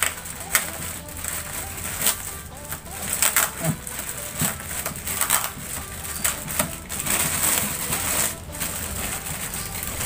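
Plastic wrapping crinkling and crackling in many quick, irregular bursts as it is handled and pulled off a guitar amplifier.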